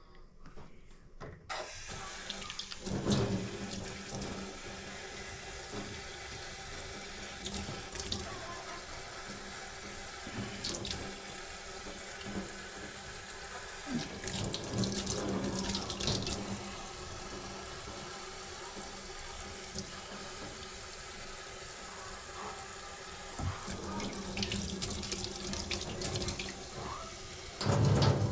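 Kitchen tap running into a sink, coming on about a second and a half in, with scattered clinks and knocks of dishes being washed under it and a louder knock near the end.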